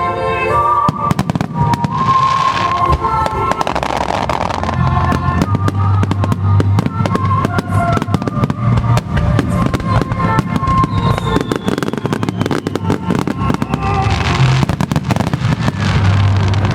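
Fireworks bursting in a dense, rapid string of cracks and bangs, with music playing under them.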